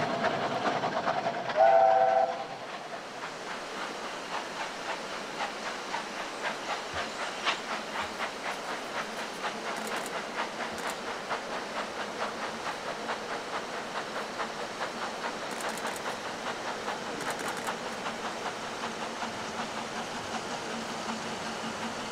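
A steam whistle sounds briefly about two seconds in. Then a narrow-gauge steam locomotive works steadily toward the listener, with a regular, rapid beat of exhaust chuffs.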